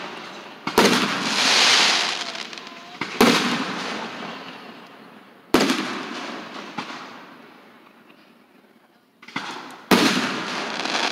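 Fireworks bursting: four loud booms a few seconds apart, each dying away slowly with a long rumbling tail. A hiss swells and fades after the first boom, and a few smaller pops come just before the last.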